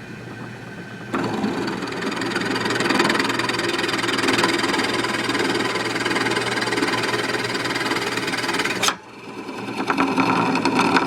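Drill press motor running with a steady hum. From about a second in, the bit cuts into a workpiece with a louder, rough grinding noise that stops abruptly near nine seconds. A shorter second stretch of cutting follows near the end.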